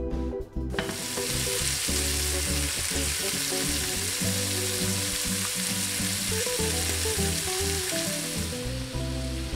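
Pieces of raw chicken frying in hot oil in a stainless steel pan: a loud, steady sizzle that starts suddenly about a second in as the meat goes into the oil, easing slightly near the end. Background music plays underneath.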